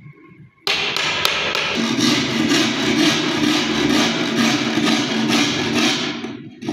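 Hammer striking a wood chisel, repeated blows that cut joint slots into a wooden stool panel, starting abruptly about a second in. A steady low tone runs underneath from about two seconds in.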